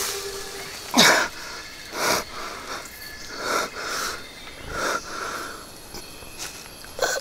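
A man breathing heavily, ragged gasping breaths about one a second; the first, about a second in, is the loudest.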